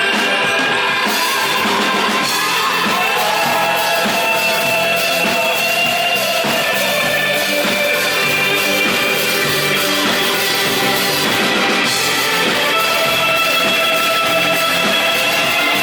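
Live rock band playing: a drum kit with cymbals crashing in about a second in, over electric guitars and bass.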